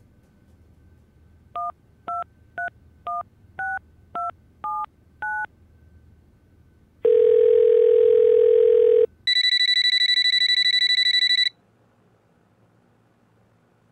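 Telephone keypad tones as eight digits are dialled, each a short two-tone beep about half a second apart. Then a steady ringing tone sounds for about two seconds, followed by a telephone ringing with a high electronic trill.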